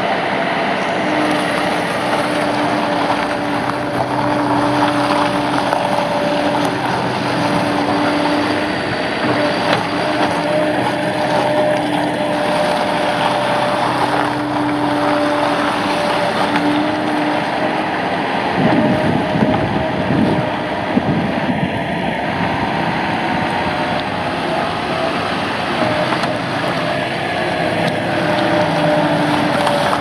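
Bobcat S185 skid-steer loader's turbo diesel engine running as the machine drives and skid-turns, with a steady whine over the engine note. About two-thirds of the way through there are a couple of seconds of rough clattering.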